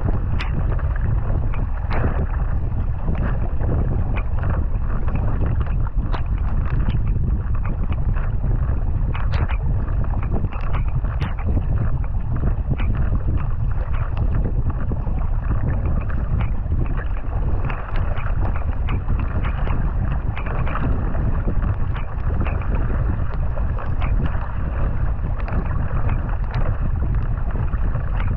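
Paddling a racing kayak at speed: repeated splashes of the paddle blades catching the water at each stroke and water rushing along the hull, under a steady rumble of wind buffeting the deck-mounted microphone.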